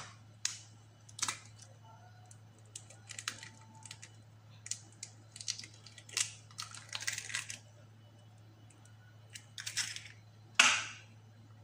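An egg being tapped against a stainless steel mixing bowl and broken open over flour. Scattered light clicks and taps of shell and bowl, some in quick clusters, with a sharper knock near the end.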